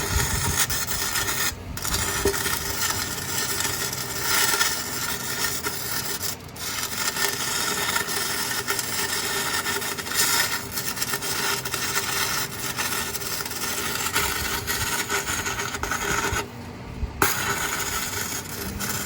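Stick-welding arc from a 6011 rod on a Lincoln Electric square wave welder: a steady, noisy hiss. It breaks off briefly about a second and a half in and again about six seconds in, then stops for a longer pause near the end before the arc is struck again.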